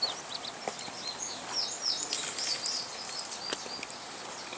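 Small birds chirping in quick, short notes, busiest in the middle, with a few sharp light clicks as tomato slices are handled on a cutting board.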